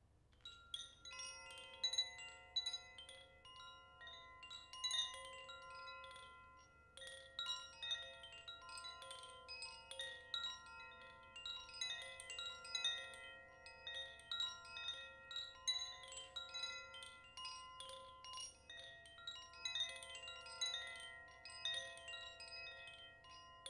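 Koshi chime being swirled: its clapper strikes the tuned rods irregularly and rapidly, and several clear bell-like notes ring on and overlap. It starts about a second in.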